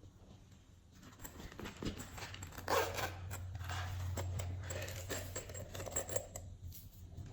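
Glossy slime being mixed and squished by hand: a dense run of small, sticky clicks and pops that starts about a second in, over a steady low hum.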